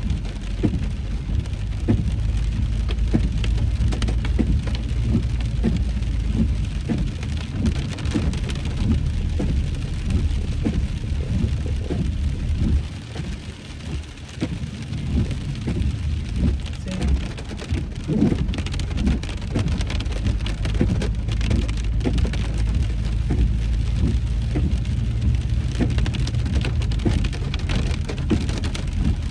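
Heavy rain drumming on a car's roof and windshield, heard from inside the car, over a steady low road and engine rumble that dips briefly about halfway through.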